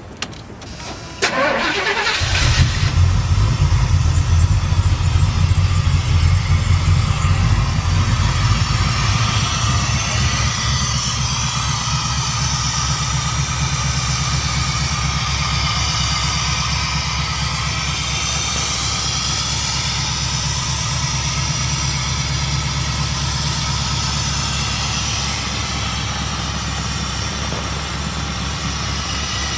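Chevy C10's engine cranking briefly and starting about two seconds in on a newly installed Royal Flush fuel injection system, its first run on the new unit. It runs at a fast idle, then eases to a slightly lower, steady idle.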